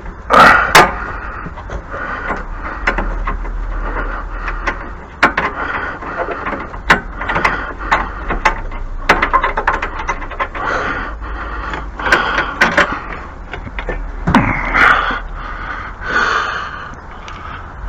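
Irregular knocks, clicks and rustling of things being handled and moved, over a low steady hum.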